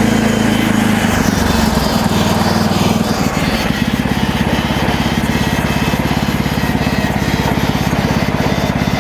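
MechMaxx SM32 sawmill's engine running steadily, then slowing down over a couple of seconds about a second in and settling to a lower, evenly pulsing idle.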